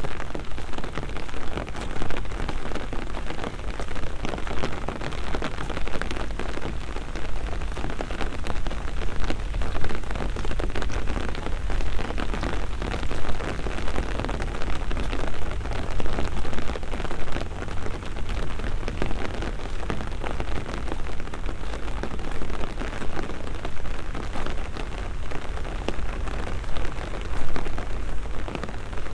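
Steady rain falling, a dense pattering of drops over a constant low rumble.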